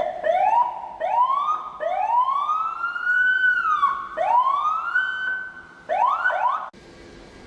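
Electronic vehicle siren from a Senken CJB100BD siren unit being sounded. It starts with quick rising whoops, moves to longer sweeps that climb and fall, then gives two short whoops and cuts off suddenly near the end.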